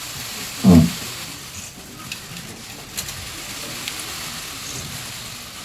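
Steady hiss of a hushed room full of reporters, with one short, loud voice sound falling in pitch from someone close by about a second in, and a few faint camera-shutter clicks later on.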